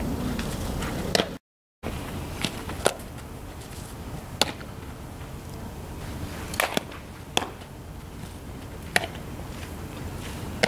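A softball smacking into leather fielding gloves about eight times, each a short sharp pop, spaced unevenly over a steady low rumble.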